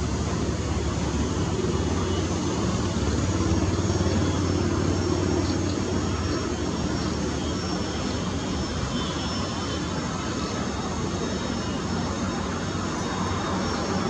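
Steady, distant engine rumble, swelling about three to five seconds in and then easing back to a constant level.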